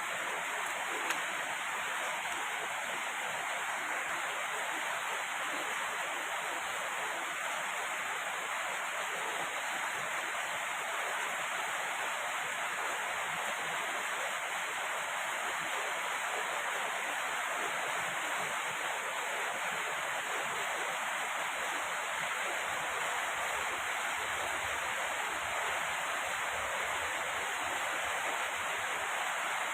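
Heavy rain pouring down in a steady, dense hiss, with one faint click about a second in.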